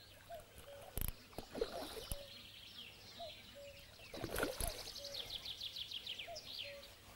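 Water splashing as a hooked carp thrashes at the surface while it is drawn into the landing net: sharp splashes about a second in and a longer burst around four seconds in. Birdsong runs underneath, with a short low call repeating about once a second.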